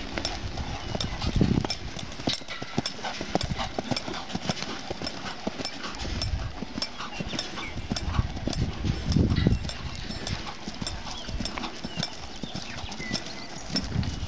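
A Paint gelding's hooves striking dirt and grass in a steady rhythm of hoofbeats, about two to three a second, with occasional low rumbles.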